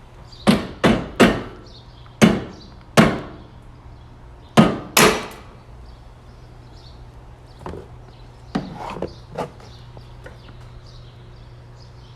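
Rubber mallet tapping a chassis brace into place: seven sharp knocks in the first five seconds, then a few fainter knocks.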